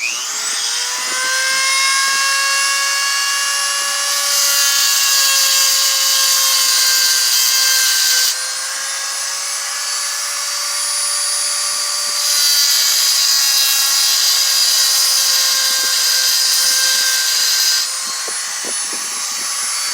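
Grinder with a dressed stone wheel running with a steady whine, which comes up to speed right at the start. Twice, for about four and five seconds starting about 4 and 12 seconds in, steel is held against the wheel, adding a harsh, hissing grinding noise.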